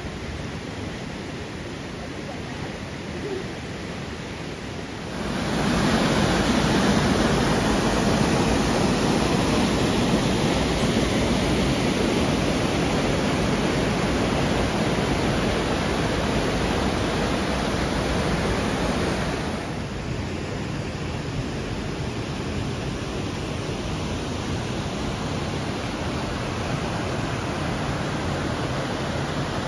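The Radovna river rushing over rapids and small cascades, a steady noise of running water. It gets louder about five seconds in and drops back about twenty seconds in.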